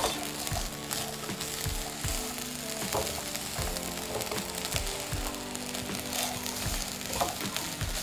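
Fried rice sizzling in a hot pan as a spatula stirs and tosses it, with a scrape or soft knock of the spatula against the pan about once a second. Soft background music with held notes runs underneath.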